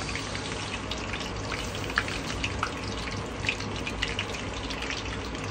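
Mackerel deep-frying in hot oil: a steady sizzle with scattered crackles and pops.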